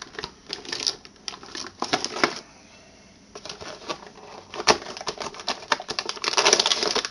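Hands handling computer hardware and packaging: a run of small clicks, taps and rustling. It pauses briefly in the middle and grows denser and louder near the end.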